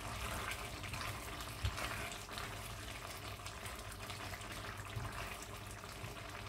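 Chickpea and potato curry bubbling in the pot, its heat just turned off, over a steady low hum. A single short knock comes a little under two seconds in.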